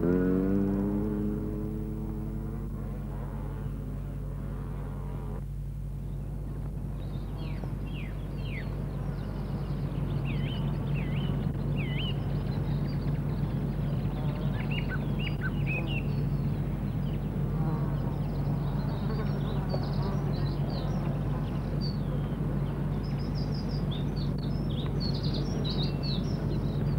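Birds singing: short high chirps and trills that start about seven seconds in and come more often towards the end, over a steady low hum. A held music chord fades out in the first couple of seconds.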